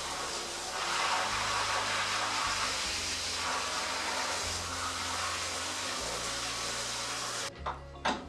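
Shower spray running steadily onto the fire pit being washed, then cutting off suddenly near the end, followed by two sharp knocks. Background music with a bass line plays underneath.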